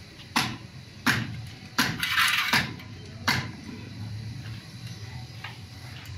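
Hand tools clinking on a stripped-down Toyota 1KZ diesel engine under repair: five sharp metallic clinks about 0.7 s apart, with a short rasp between the third and fourth. After that there is only faint clatter.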